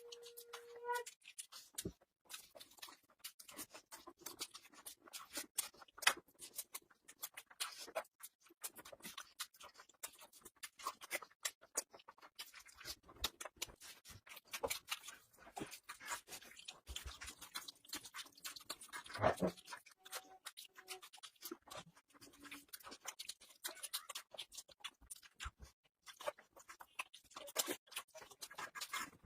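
A person eating close to the microphone: chewing with a steady run of small wet mouth clicks and smacks.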